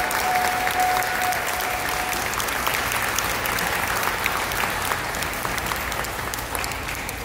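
Applause: many people clapping, slowly dying down.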